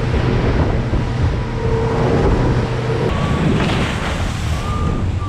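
A boat running fast on open sea: wind buffeting the microphone and water rushing and spraying past the hull, over the steady drone of the boat's engine.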